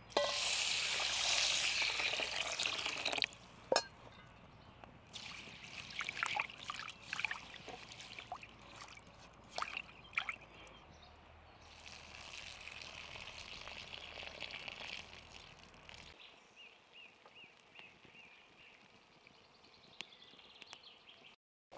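Water poured from a glass jug into an enamel bowl of dry bulgur, a steady splashing stream for about three seconds. Then hands swish and rub the grain in the water, with small splashes and clinks.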